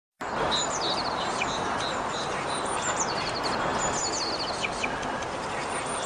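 Small songbirds singing, with three short, quick, high phrases repeated every couple of seconds and a few single chirps between them, over a steady rushing background noise.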